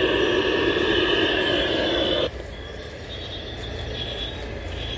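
A steady buzzing drone played over an exhibit loudspeaker cuts off suddenly a little over two seconds in, leaving quieter outdoor background.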